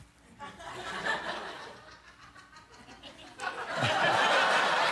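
Studio audience laughing, quiet at first, then a loud wave of laughter and clapping that rises about three and a half seconds in.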